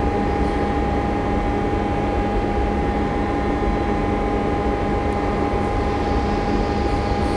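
Steady mechanical hum and hiss with a constant mid-pitched tone, unchanging throughout.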